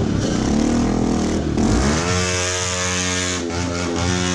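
Motorcycle with a loud exhaust being revved. The engine climbs in pitch about a second and a half in and holds high, dips briefly near the end, then holds high again.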